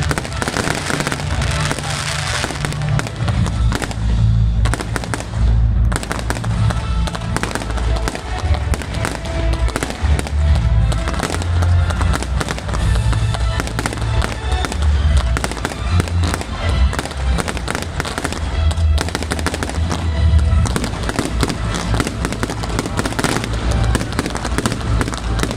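Fireworks display: a dense run of bangs and deep booms, with music playing at the same time.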